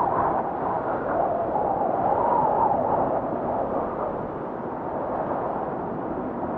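Wind noise, a steady rushing hiss that swells and eases, with a faint wavering whistle that is strongest in the first three seconds.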